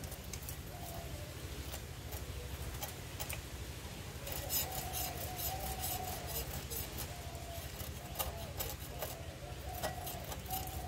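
Bata fish being scaled against the fixed curved blade of a boti: a series of quick, sharp scrapes and clicks as the scales are stripped off, coming thicker from about four seconds in.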